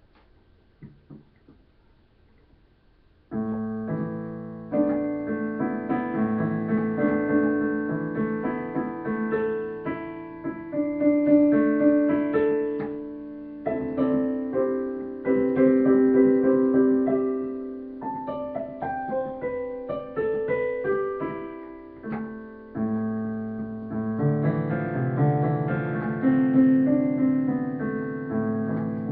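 Digital piano being played: after about three seconds of near quiet with a few faint clicks, chords begin and carry on, each struck and left to fade.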